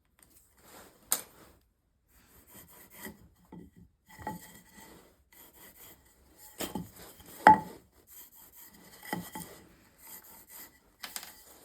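Short, irregular scraping and rubbing strokes on a spruce workpiece, with a few sharp knocks; the loudest knock comes about two-thirds of the way through.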